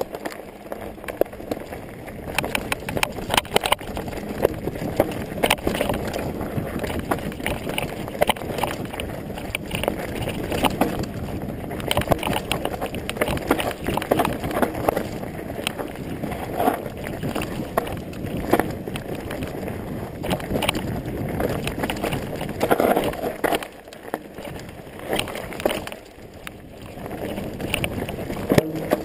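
Specialized Stumpjumper mountain bike descending a rough dirt singletrack: tyres rumbling over dirt and stones, with constant rattling and clattering knocks from the bike and its camera mount over the bumps.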